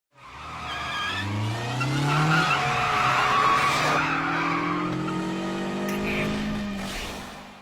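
Anime sound effect: a hissing, engine-like sound whose pitch climbs over the first couple of seconds and then holds steady, fading out near the end.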